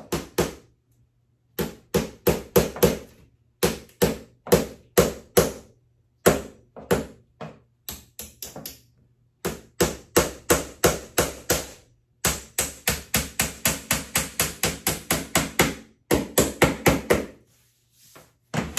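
Hammer driving small nails to fasten trim along a wall edge: sharp strikes in quick runs of several blows, about four or five a second, with short pauses between the runs.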